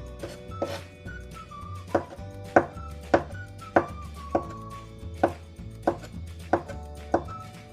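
Kitchen knife slicing chicken sausage on a cutting board: a string of short knocks, roughly one every half to three-quarters of a second, over background music.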